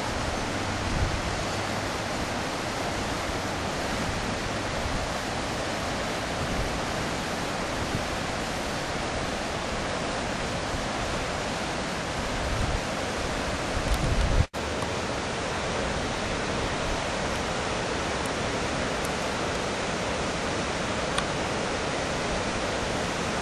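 Steady rush of the Coginchaug River in flood, swollen with snowmelt and heavy rain, its fast brown water pouring over rapids. The sound cuts out for an instant about halfway through.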